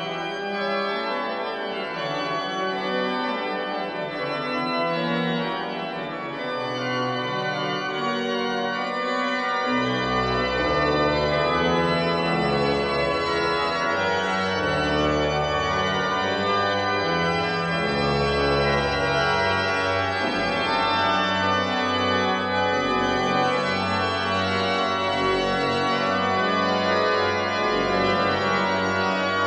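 Church pipe organ playing, both hands moving on the manuals with many notes sounding together. About ten seconds in, a deep bass line comes in and the sound grows slightly fuller and louder.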